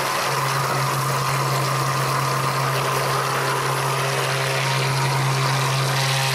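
Handheld stick blender motor running steadily with its head submerged in thick cold process soap batter, blending out ricing.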